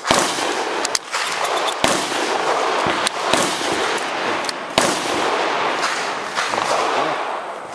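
Slug shells being thumbed into a shotgun's tube magazine, giving irregular sharp clicks and cracks over a loud, steady rushing noise.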